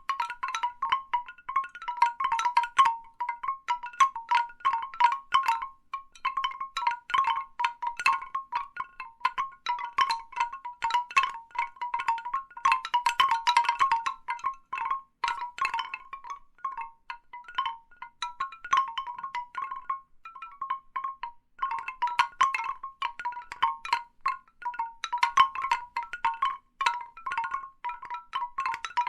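Large bamboo wind chimes knocking together: irregular hollow wooden tocks around one pitch, coming in busy flurries that thin out briefly about two-thirds of the way through.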